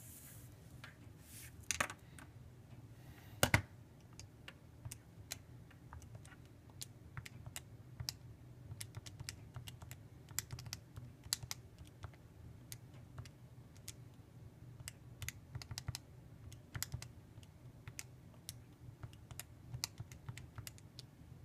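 Buttons of a handheld calculator being pressed, a long run of light, irregular clicks as a multi-term calculation is keyed in. Two louder knocks come about 2 and 3.5 seconds in.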